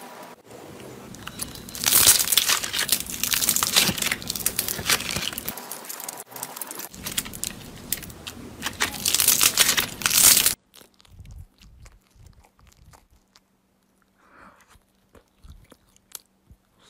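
Dense crinkling and crackling as a slime wrapped in clear plastic film is unwrapped and squeezed by hand, loud for about eight seconds and then cutting off abruptly. After that come faint, scattered crackles and clicks.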